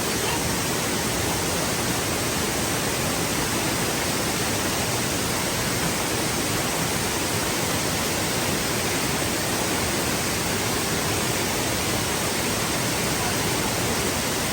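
Waterfall: falling water rushing steadily with no break.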